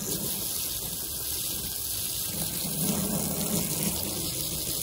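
Garden hose spray nozzle jetting a steady stream of water onto an opened blue crab and the plastic tabletop under it, rinsing out the crab's insides: an even, unbroken hiss of spray.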